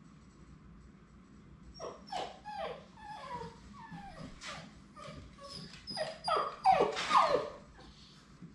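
Labrador Retriever puppy whimpering: a run of about a dozen short, high calls, each falling in pitch, getting louder toward the end.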